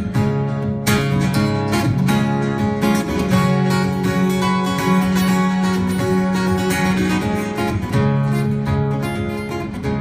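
Instrumental break of a song: strummed guitar with sustained chords, no singing.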